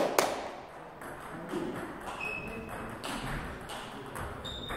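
A table tennis rally ends with the last two sharp clicks of the celluloid ball off bat and table right at the start. Then only the hall's low murmur remains, with two faint short squeaks, one about two seconds in and one near the end.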